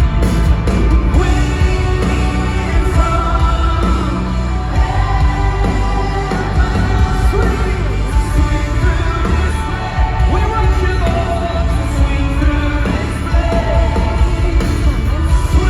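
Pop-style music with singing over a strong, steady bass.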